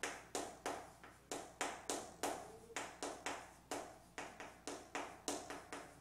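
Chalk tapping and clicking against a chalkboard as someone writes, a quick uneven run of about three sharp taps a second, one for each stroke of the characters.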